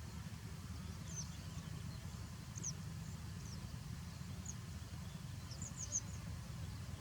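Small birds giving short, high chirps, scattered singly and in a quick cluster of three or four near the end, over a steady low rumble.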